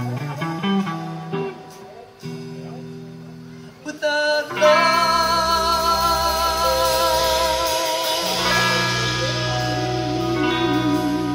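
Live band with electric guitar and keyboards playing a passage without lyrics. Quiet picked guitar notes at first, then about four and a half seconds in the band swells louder under a long, wavering lead line.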